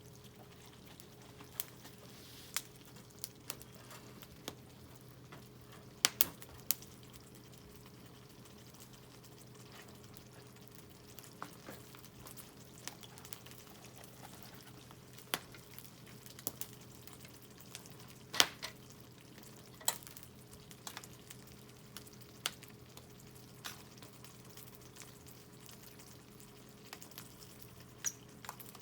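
Wood fire of scrap SPF lumber crackling, with irregular sharp pops, about one a second, over a faint hiss; two pops, about 6 and 18 seconds in, are the loudest.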